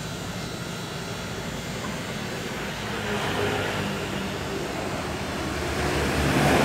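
A motor vehicle's engine running with a steady rumble, swelling about three seconds in and louder near the end.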